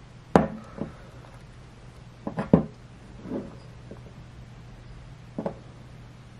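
Light knocks and clicks of small items being handled and set down in an open cardboard box, a glass hot sauce bottle among them. There are about five separate knocks, the loudest a quick double knock a little past halfway, over a steady low hum.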